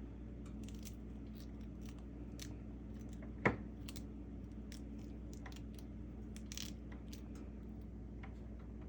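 Scattered light clicks and taps with one sharp knock about three and a half seconds in, over a steady low hum.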